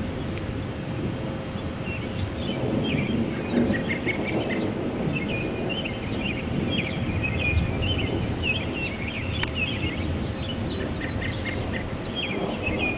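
Wind rushing over the microphone ahead of an approaching thunderstorm. Many birds chatter in quick, busy calls from about two seconds in.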